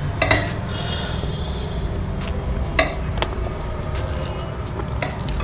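Metal serving spoon clinking against a ceramic serving dish as curry is scooped and ladled out: a few short, separate clinks over a low steady background.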